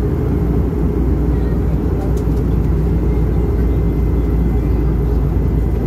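Airbus A321 cabin noise on descent toward the runway: the engines and the airflow over the fuselage make a steady, even low rumble.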